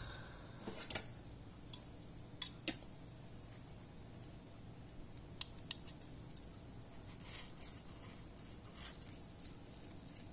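Table knife and fork clinking and scraping on a ceramic plate while cutting chicken: a few sharp clinks in the first six seconds, then lighter scraping as the knife works through the meat.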